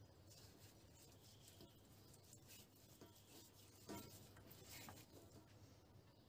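Near silence with faint rustling and handling sounds of hands rubbing olive oil into a raw leg of lamb in an enamel roasting pan, and one slightly louder tap about four seconds in.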